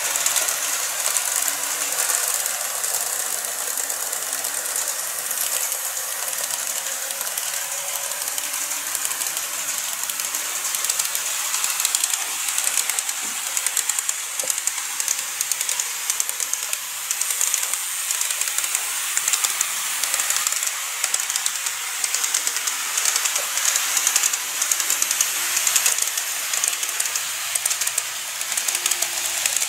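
N-scale KATO 701 series model train running on its track: a steady hiss of small metal wheels rolling on the rails, laced with fast, fine clicking.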